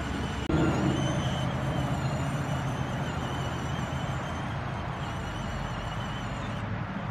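Electric motors and gearboxes of a battery-powered ride-on toy car whining steadily as it drives over grass, with a low hum under a thin high whine that wavers slightly with speed.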